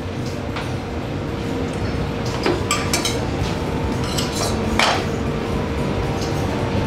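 Metal spoon scraping and clinking against a stainless steel saucepan and small ceramic bowls as crab meat is spooned out, a few sharp clinks spread through, over a steady low hum.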